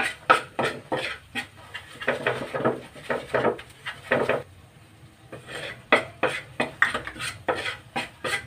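Metal spoon scraping and stirring in a nonstick frying pan, working flour into melted butter for a roux. The strokes come quickly, about two a second, with a pause of about a second midway.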